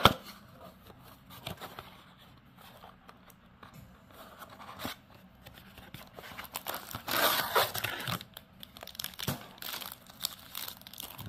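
Trading-card packaging being torn open and crinkled, most likely the foil wrapper of a pack of baseball cards from a blaster box. A sharp crack comes right at the start, light crinkling follows, and the loudest tearing comes about seven seconds in.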